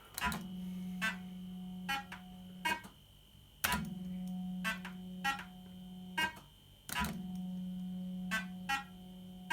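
1980s JPM Nudge Double Up fruit machine playing three games in quick succession. Each time the reels spin with a steady hum, then stop with a series of sharp clicks, over a constant high electronic tone.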